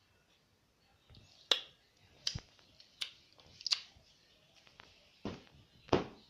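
A series of about six sharp knocks, unevenly spaced roughly half a second to a second apart.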